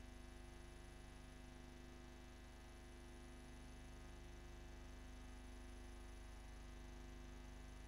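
Near silence: a steady electrical hum.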